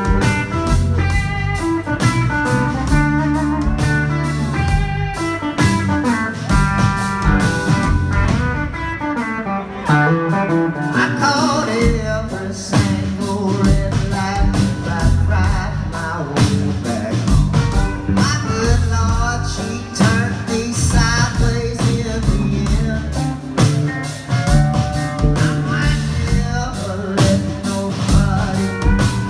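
Live blues-rock band playing through a PA system: electric guitars over a drum kit and bass, with singing.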